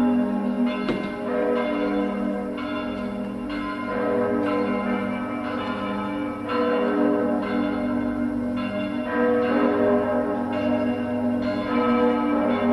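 Several church bells ringing together in a full peal, their strokes overlapping and new strokes sounding about once a second.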